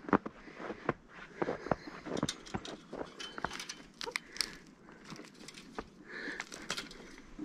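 Footsteps in deep snow: a string of irregular crunches and knocks.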